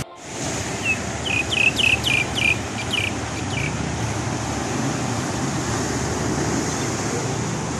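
Surf washing over a rocky shoreline, with wind, as a steady rush. About a second in comes a quick run of about eight short, high chirps lasting some three seconds.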